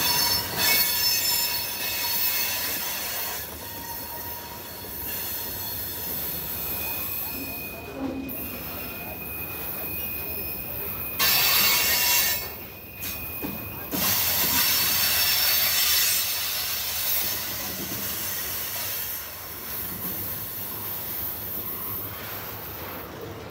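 Freight cars rolling past on steel rails, with rumbling and clatter from the wheels and trucks. A thin, high wheel squeal runs for several seconds in the middle.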